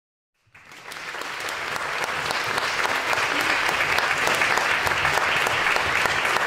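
Audience applauding: the clapping starts about half a second in, swells over the next second or two, then holds steady.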